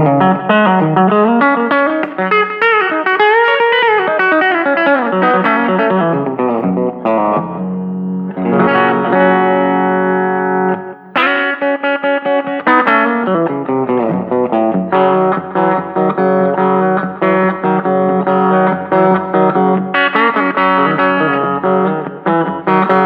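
EART headless electric guitar played clean on its bridge pickup through a Fender Rumble 15 amp fitted with a guitar speaker, with a little reverb and delay. Tele-style picked riffs with string bends in the first few seconds, a held chord ringing out partway through, then more picked phrases.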